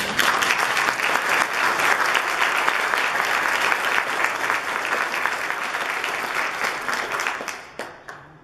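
Congregation applauding: dense clapping that thins to a few scattered last claps and stops about eight seconds in.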